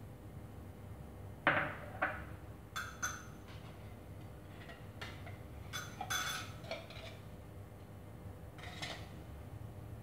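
A metal spoon clinking and scraping against a bowl and a tin can while jelly cubes and fruit are spooned out: a scatter of light, irregular clinks, the loudest about one and a half seconds in.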